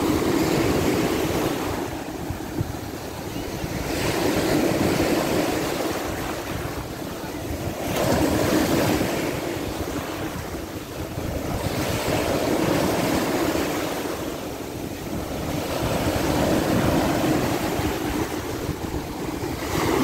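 Sea surf with large waves breaking on the shore, the wash swelling and fading about every four seconds, with wind rumbling on the microphone.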